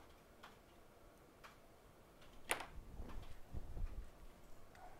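Scattered light clicks and ticks of tools being handled at a microsoldering bench, with one sharper click about halfway through and a few dull bumps a second later.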